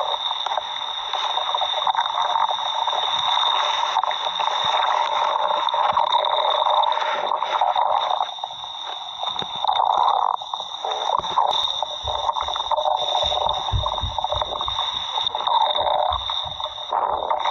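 Stomach growling: a long, continuous gurgling rumble that swells and fades, with a cluster of short, deeper thumps in the second half. A steady high-pitched whine runs underneath.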